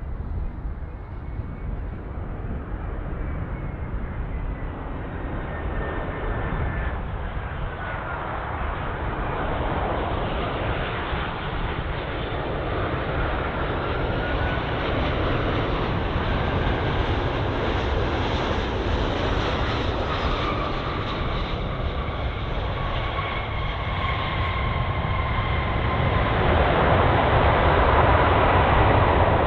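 Four-engine Airbus A340 jet airliner on approach to land, its engines a steady rumble that grows louder as it nears, with a faint whine gliding down in pitch.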